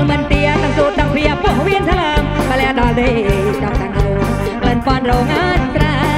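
Kantrum medley band music: a wavering melody line over a steady bass and drum beat.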